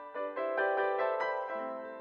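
Background piano music: a quick run of gentle notes that settles on a held chord near the end.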